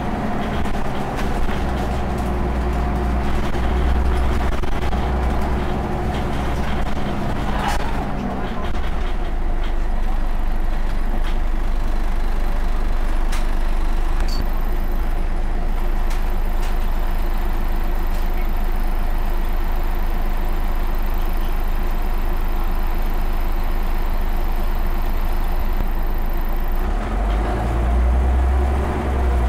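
Scania OmniCity bus's diesel engine heard from inside the passenger saloon: running under way, then dropping to idle about eight seconds in as the bus comes to a stop. A thin, steady high whine sounds while it stands. The engine note rises again near the end as the bus pulls away.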